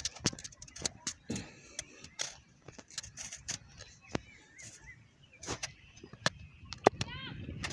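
Hands digging and groping in sand under shallow seawater: irregular splashing and sloshing with many sharp clicks.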